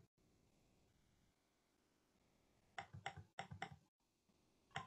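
Near silence: room tone, broken a little under three seconds in by four quick, faint clicks within about a second.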